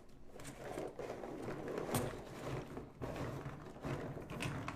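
Handling noises on a table: a series of light knocks and clicks, with one sharper click about two seconds in, as coin tubes and packaging are moved about.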